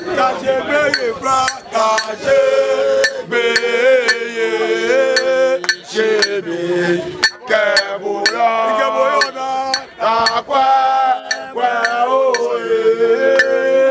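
Group of people singing a chant-like song in held notes, with repeated sharp metallic clinks over it.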